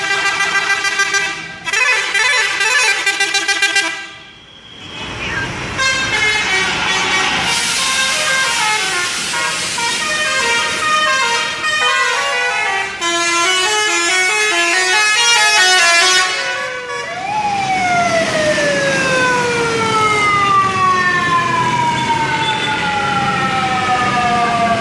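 'Telolet' musical multi-tone horns playing. First come held, pulsing chords, then a fast stepping run of notes, and from about two-thirds of the way through a long siren-like tone that falls steadily in pitch.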